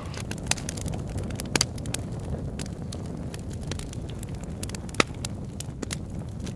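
Steady low rumble with scattered crackles and pops, one sharper pop about five seconds in.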